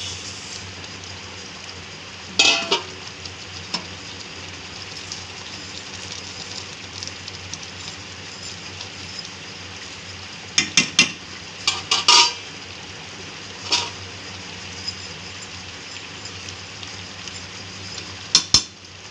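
Vermicelli being stirred into boiling curry in a steel kadhai over a high gas flame: a steady hiss of the bubbling pan, broken by sharp clinks and knocks of the steel bowl and wooden spatula against the pan, once a few seconds in and in clusters later.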